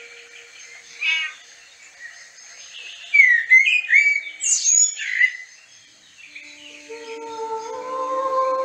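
Birds chirping in short sweeping calls, then music with sustained held notes fades in and grows over the last couple of seconds.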